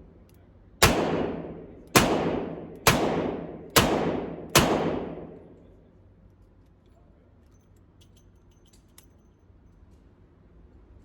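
Revolver firing five shots at roughly one-second intervals, each crack followed by a long echoing decay. A few faint clicks follow after the last shot.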